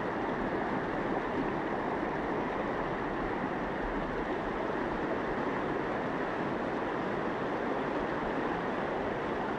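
Fast-flowing floodwater rushing in one steady, unbroken wash of noise.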